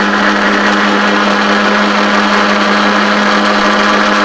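Electric blender's motor running at a steady pitch, churning a wet green chutney in a glass jug, on a short run to mix in spices just added.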